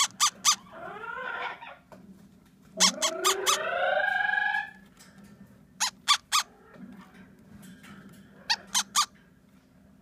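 A newly hatched Amazon parrot chick's squeaky begging calls, hungry: a short rising call about a second in, then a longer one that rises and holds. Sharp clicks come in quick groups of three or four, four times.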